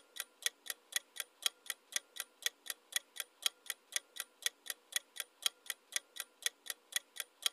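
Ticking-clock sound effect timing a quiz countdown, with sharp even ticks about four a second, alternating stronger and weaker like a tick-tock.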